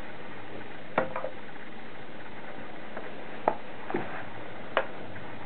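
A handful of light knocks and taps, a finger puppet being moved and set down on a wooden tabletop, over a steady background hiss.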